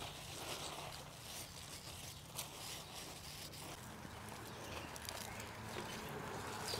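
Faint scratching and rustling of hands digging in garden soil and pushing among leafy plants while planting, a scatter of small ticks and scrapes.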